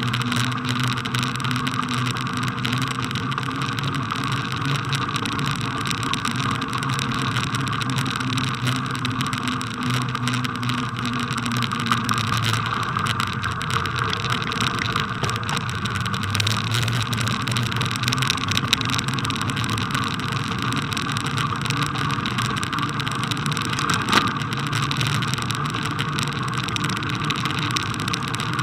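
A bicycle being ridden over packed snow, heard through a camera fixed to the bike: a steady rolling noise with many small crackles.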